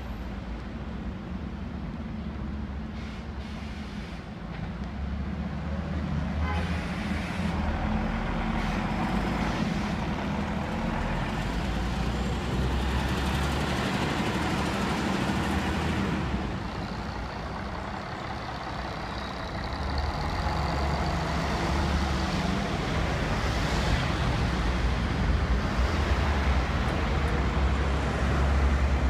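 A diesel city bus engine runs as the bus drives through a junction, growing louder as it comes closer, with car traffic around it. Midway it eases off briefly, then traffic swells again with a thin high whine.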